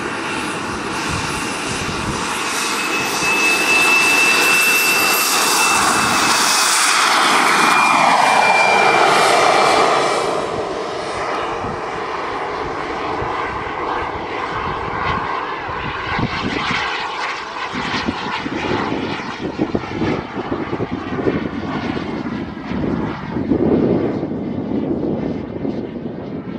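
Skymaster T-45 Goshawk model jet's turbine engine heard from on board, with a steady high whine and a loud rush of air that build up and stay loud for several seconds at full power for the takeoff. After about ten seconds it settles lower in flight, with gusty wind buffeting the onboard microphone.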